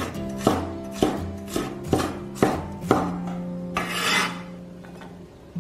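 Cleaver chopping scallion whites on a wooden cutting board, about two sharp strokes a second, then the blade scraping across the board around four seconds in.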